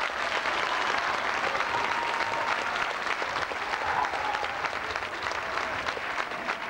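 Crowd applauding, a steady dense clapping that keeps on without a break.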